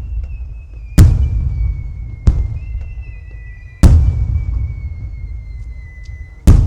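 Aerial firework shells bursting four times, a few seconds apart, each bang trailing off in a low rumble. A high, thin whistle slides slowly down in pitch between the bangs.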